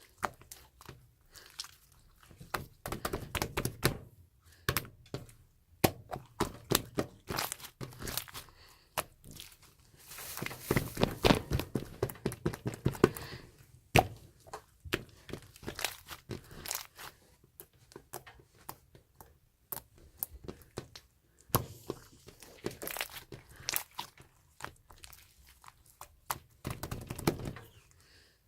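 Hands squishing, poking and stretching a tough, stretchy slime, making quick sticky clicks and pops. They come in dense flurries a few seconds in, in the middle and near the end, with sparser clicks between.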